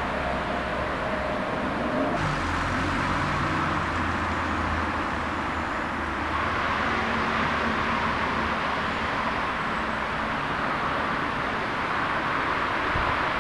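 A car driving off down a road: a low engine hum over a steady wash of outdoor noise, the hum dropping away about two-thirds of the way through.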